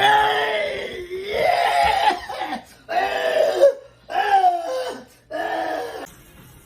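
A person's voice making a run of five drawn-out, pitched, wordless sounds, each under a second long with short breaks between, ending about six seconds in.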